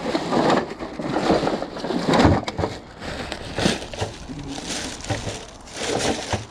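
Rubbish being rummaged through and scrap handled: irregular crunching, rustling and clattering with scattered knocks, loudest about two seconds in.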